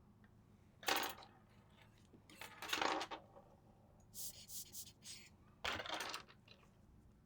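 Small metal objects clinking and clattering on a hard work surface in four separate bursts, the third a quick run of light, high clinks.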